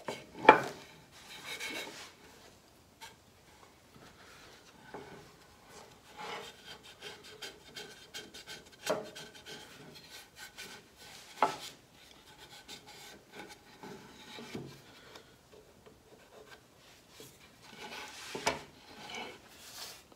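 Hands rubbing sawdust over freshly glued elm joints to soak up glue squeeze-out, in uneven stretches. Four sharp knocks come as the wooden leg pieces are handled, the loudest about half a second in.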